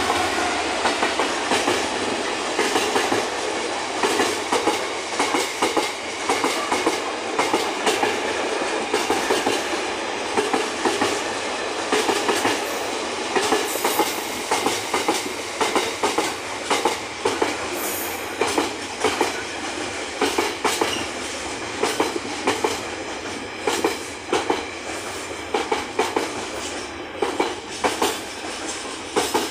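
Container freight train behind a GB Railfreight Class 66 diesel locomotive passing close at speed: the locomotive goes by at the start, then a long run of loaded container flat wagons rumbles past, the wheels clicking over the rail joints in groups of knocks every second or two.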